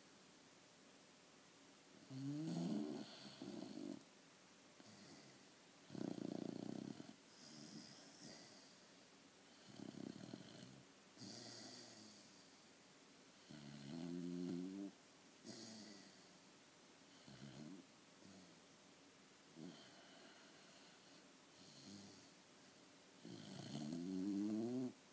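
Snoring: a loud snore every two to four seconds, some with a buzzing rattle that rises in pitch.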